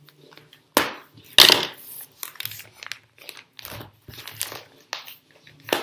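A postal envelope being handled and torn open, its wrapping crinkling: two loud rustling rips about one and one and a half seconds in, the second the louder, then lighter crackling handling.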